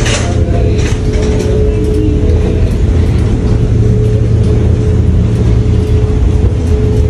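A wheelchair being pushed along an airport jet bridge: a steady low rumble of the rolling chair with light rattling of its frame in the first second or so, over a constant hum.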